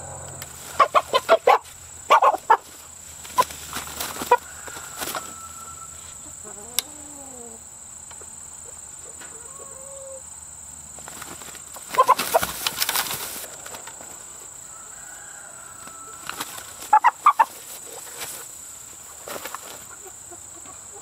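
Chicken clucking in short bursts of rapid clucks, several times, with a louder scuffling burst about twelve seconds in.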